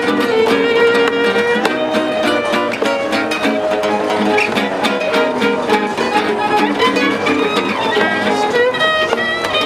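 Live folk band: a fiddle plays the melody, holding long notes, over strummed acoustic guitars and a steady cajon beat.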